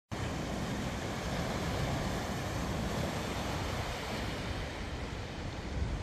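Sea surf washing steadily on the shore, with wind rumbling on the microphone.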